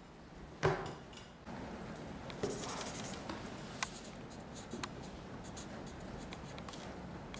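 Black marker pen writing on a sheet of paper on a table: short strokes scratching and rubbing across the paper. A single sharp click comes near the start.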